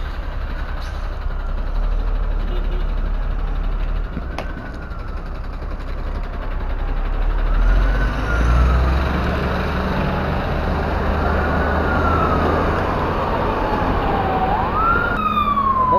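Emergency vehicle siren wailing in slow rising and falling sweeps, faint at first and much louder near the end, over a steady background rumble.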